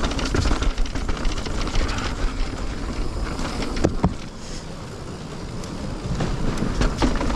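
Orbea Rise electric mountain bike running fast down a dirt trail: tyre noise, frame and drivetrain rattle, and wind on the camera microphone. About four seconds in there is a sharp knock as the wheels come onto a wooden slat bridge. The ride is quieter on the boards for a couple of seconds, then the rattle and clicks pick up again.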